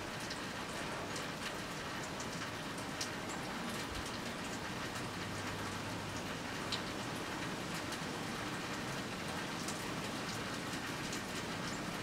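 Irregular soft ticks of a woodpecker pecking at a birch-log suet feeder, over a steady outdoor hiss.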